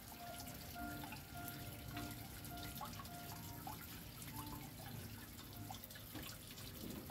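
Rainwater dripping from a roof edge onto wet wooden drum lids, faint and steady.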